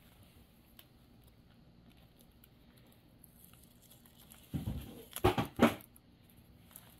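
Hands working close to the microphone as tape and cotton eye pads are peeled off a doll's head lying on bubble wrap: faint rustling, then a cluster of loud rustles and knocks about four and a half seconds in.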